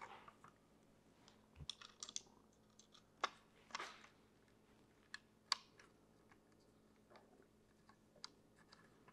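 Faint, scattered small clicks and taps of screws being handled and turned in to fasten a digital readout scale, with a few sharper clicks about three and five and a half seconds in.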